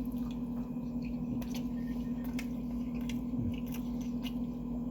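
Close-miked chewing of a mouthful of sushi, with soft wet mouth clicks scattered through, over a steady low hum.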